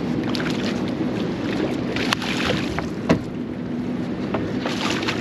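Boat engine running steadily under wind and water noise, with two sharp knocks about two and three seconds in.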